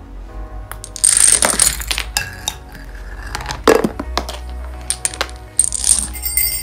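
Dominoes toppling and clattering against each other in a Rube Goldberg chain reaction, with sharp clicks and three spells of clatter, about a second in, midway and near the end, over background music.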